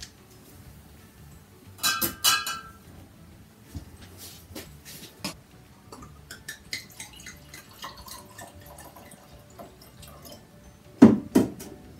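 Glass bottle of red wine clinking against a wine glass with a brief ring, then wine poured and trickling into the glass in small drips. Two louder knocks come near the end.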